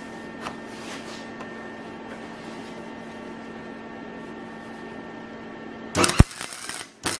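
A steady low hum, then about six seconds in a flux-core wire-feed welder strikes its arc on steel and crackles for about a second before cutting off.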